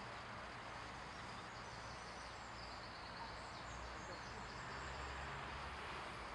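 Quiet outdoor ambience: a steady faint hiss, with faint high bird chirps in the middle.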